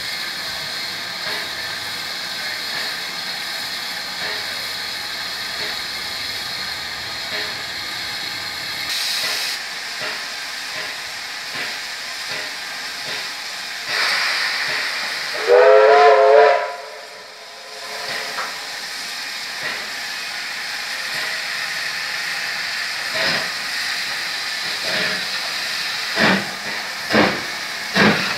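USATC S160 2-8-0 steam locomotive standing with steam hissing steadily. Its whistle sounds once for about a second and a half halfway through, and near the end it starts away, its exhaust beats slow at first and quickening.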